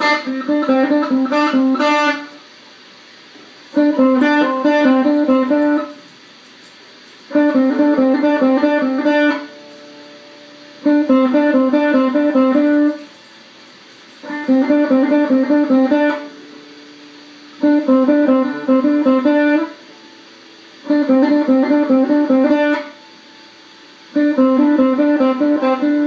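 Les Paul-style electric guitar playing an alternate-picking exercise: a short run of rapid picked notes, repeated eight times. Each run lasts about two seconds, with a pause of about a second and a half between runs.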